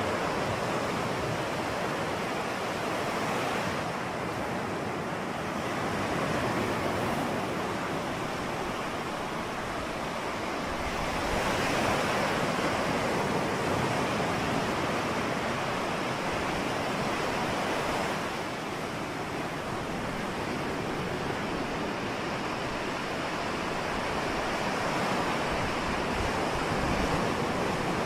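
Ocean surf: a continuous wash of breaking waves that swells and ebbs slowly, loudest for several seconds in the middle.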